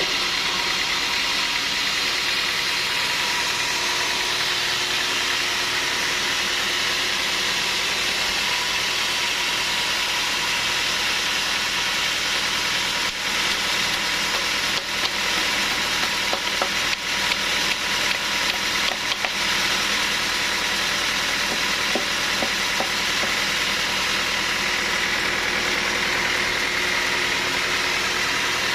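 Sawmill machinery running steadily, with a run of short clicks and knocks partway through.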